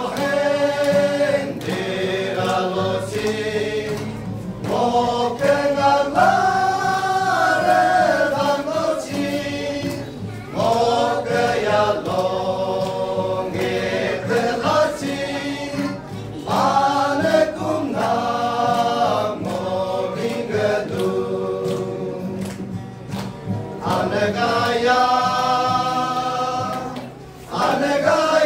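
A men's group singing a gospel hymn together, accompanied by an acoustic guitar. The singing comes in phrases of a few seconds with short breaks between them.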